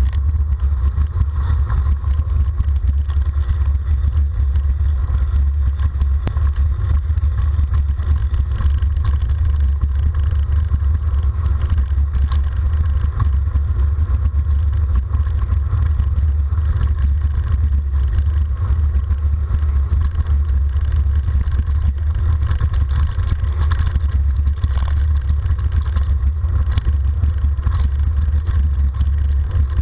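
Steady low wind buffeting on the microphone of a camera mounted on a mountain bike riding downhill, mixed with the tyres rolling over gravel and faint rattling of the bike.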